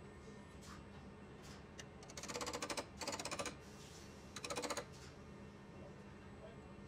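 A hand tool worked against a steel panel: three short bursts of rapid, even metallic clicking, a little over a second apart, over a faint steady hum.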